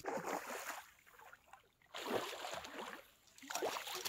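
Water splashing in three short bursts as a pike thrashes in a landing net and is lifted out of the lake.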